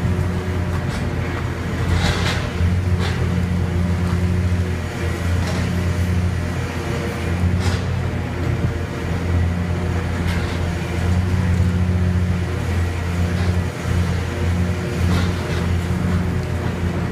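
Demolition excavator's diesel engine running under hydraulic load, a low hum that swells and eases as the crusher jaws work. Sharp cracks and crunches of concrete breaking come every few seconds, loudest about two seconds in and near eight seconds in.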